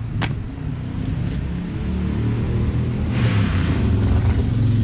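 Low engine rumble of a motor vehicle running nearby, growing louder. There is a single click just after the start.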